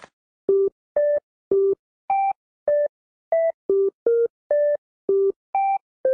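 Telephone keypad touch-tones: about a dozen short two-note beeps, roughly two a second, each at a different pitch, as a long PIN is keyed in.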